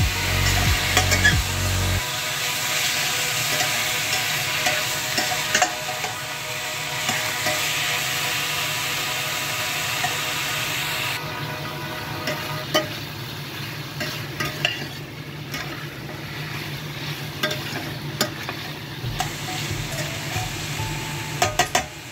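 Chicken pieces and chopped onion sizzling in a stainless steel pan while a metal spatula stirs and scrapes them, with scattered clicks of the spatula against the pan. The sizzle drops noticeably about halfway through.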